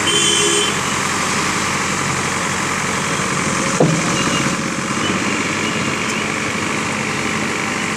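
JCB backhoe loader's diesel engine running steadily as it works the trench. A brief sharp sound about four seconds in.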